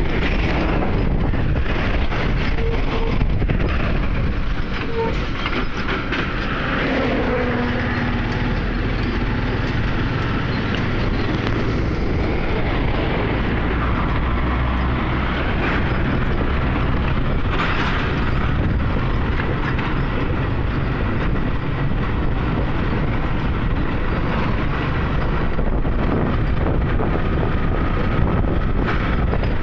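Motorcycle being ridden: its engine running under a steady rush of road and wind noise, with heavy trucks close by on the road.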